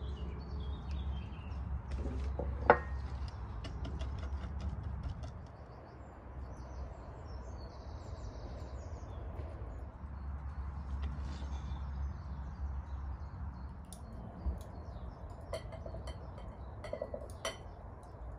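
Metal cookware and utensils clinking and clicking, with one sharp ringing clink about three seconds in, over a steady low rumble. Birds chirp faintly now and then.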